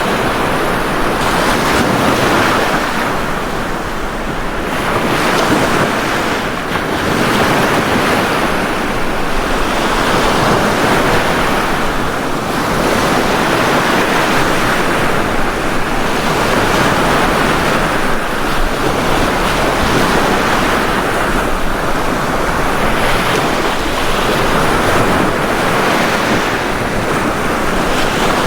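Ocean waves breaking on a beach: a continuous wash of surf that swells and eases every few seconds.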